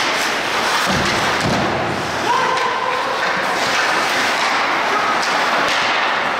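Ice hockey rink sound during play: a steady wash of skates on ice and spectators' voices, with a few sharp stick-and-puck knocks. There is a low thud about a second in and a short held tone about two seconds in.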